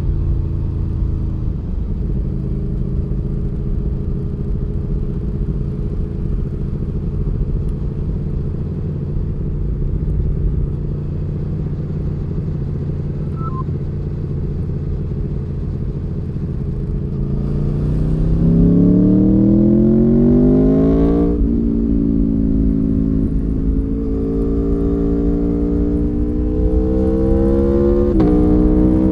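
2019 Aprilia Tuono V4 1100 Factory's V4 engine, heard onboard with wind rush. It holds steady revs at first, then, about seventeen seconds in, accelerates hard. The pitch climbs until an upshift drops it about twenty-one seconds in, then climbs again to a second upshift near the end.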